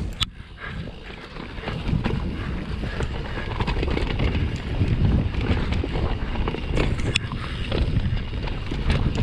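Mountain bike rolling over a dirt trail, with wind buffeting the chest-mounted camera's microphone as a steady rumbling rush that grows louder about two seconds in, and a few sharp clicks and rattles from the bike.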